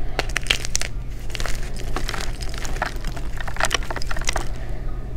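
Glitter-topped blocks of gym chalk crushed by fingers: clusters of crisp crunches and cracks as the chalk breaks, thinning out near the end.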